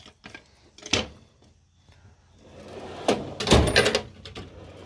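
A steel Snap-on tool box drawer rolling along its slides and stopping with a clatter of metal tools, after a single click about a second in.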